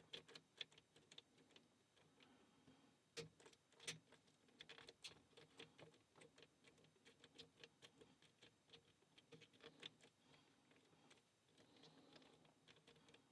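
Faint, irregular clicking and light scraping of a lock pick working the pins of a lock cylinder under a tension tool, with a cluster of slightly louder clicks around three to five seconds in.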